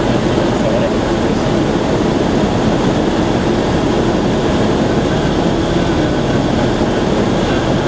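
Cabin noise of a Cessna 172 in flight, heard from inside the cockpit: the piston engine, propeller and rushing air make one steady, even drone.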